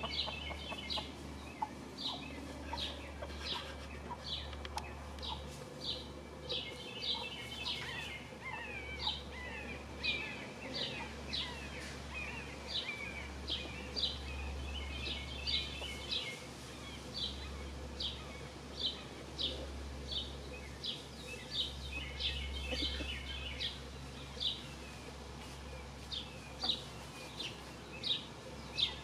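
Small wild songbirds chirping: short, high, falling chirps one or two a second, with runs of quicker twittering, over a steady low rumble.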